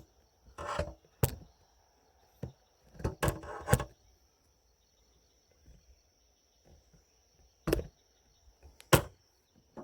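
Scattered short knocks and bumps, a cluster of several about three seconds in and single ones near the end, with quiet between; no grinder running.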